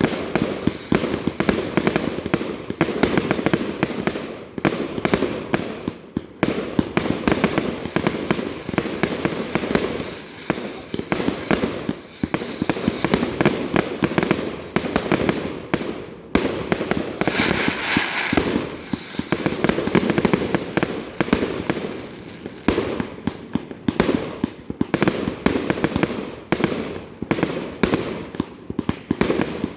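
Fireworks display going off in rapid succession: a near-continuous run of bangs and crackling, with a brief hissing stretch a little past halfway.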